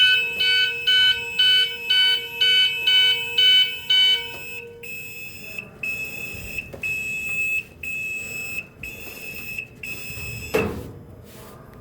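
Fire alarm sounder under test: a rapid high beeping, about two and a half pulses a second, changes about four seconds in to longer beeps about once a second. A sharp knock near the end, after which the alarm falls quiet.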